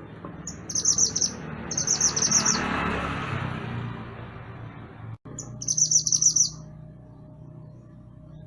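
A mantenan gunung songbird calling in three quick runs of rapid, high, chattering notes, the last about five and a half seconds in, over a background hiss that swells in the middle.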